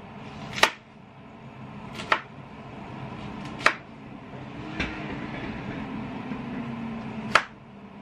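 Chef's knife slicing an apple thinly on a wooden cutting board: the blade knocks sharply on the board five times, about one every second and a half, with a longer pause before the last knock.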